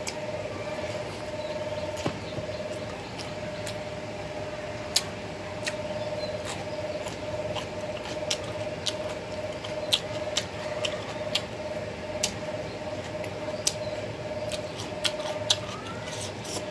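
Close-up eating sounds of rice eaten by hand: wet chewing and smacking, with sharp clicks scattered irregularly throughout, over a steady hum.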